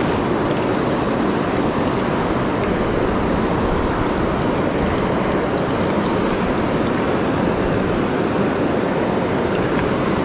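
Mountain river rapids rushing, a steady, loud wash of whitewater close by.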